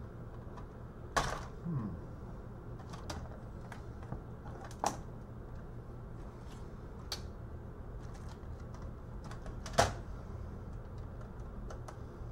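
Scattered clicks and knocks of a laptop's metal chassis and plastic parts being handled and pried apart with a screwdriver, the sharpest about a second in and again near the end. A steady low hum runs underneath.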